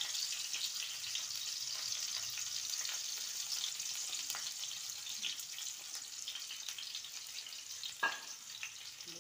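Sliced onions sizzling in hot oil in a frying pan: a steady hiss with fine crackling that eases slightly. A single sharp click is heard about eight seconds in.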